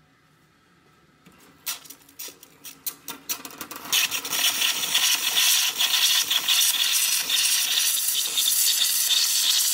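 Rancilio Silvia espresso machine's steam wand opening: it spits and crackles with condensed water for a few seconds, then settles into a loud steady hiss of dry steam from the boiler.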